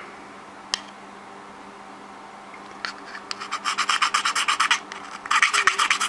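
A hand file scraping the edge of a notch cut into a plastic wall plate's hole, in two runs of quick strokes, about eight a second, that start about three seconds in with a short break near the end. A single click comes just under a second in.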